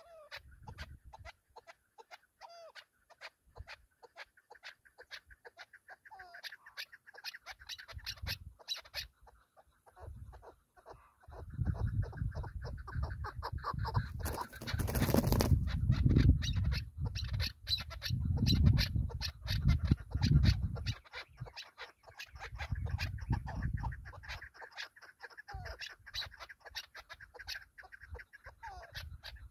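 Chukar partridges calling: long runs of rapid, sharp clucking notes with a few short drawn notes among them. A low rumble comes and goes in the middle.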